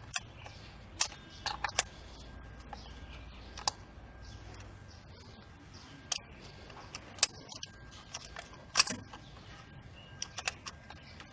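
Scattered metallic clicks and clinks of hand tools and parts, about ten irregular knocks with the sharpest near the end, while a worn spark plug is being replaced on a misfiring Kia engine.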